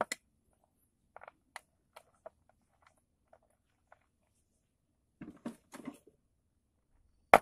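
Small metal clicks and ticks of a link watch band being handled and fitted by hand, with a short cluster of rattling around five seconds in and one sharp, loud click near the end.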